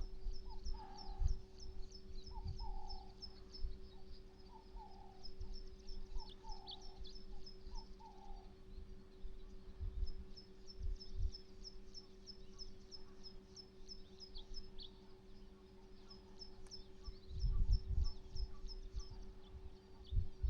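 Birds calling outdoors: runs of rapid, high, short chirps repeating through the stretch, with lower falling call notes during the first half. A steady low hum runs underneath, and low rumbles of wind on the microphone come near the end.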